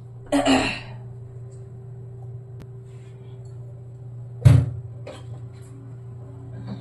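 A steady low hum with one hard clunk about four and a half seconds in, followed by a lighter knock, like a pot or cupboard door knocked in a kitchen.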